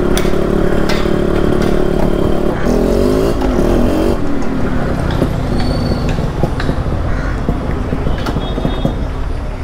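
Yamaha RX100's 98cc air-cooled single-cylinder two-stroke engine running through an aftermarket expansion-chamber exhaust, heard from the saddle at a steady cruise. About three seconds in, the engine note falls as the bike slows. It then settles to a rougher, lower running sound.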